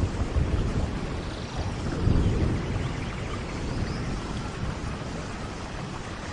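Steady tropical rain falling, with low rumbling swells, the strongest about two seconds in, and faint bird chirps in the background.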